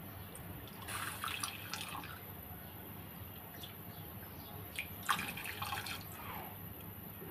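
Milk heating in a ghee-greased frying pan, faintly bubbling and crackling, with two short livelier spells about a second in and about five seconds in.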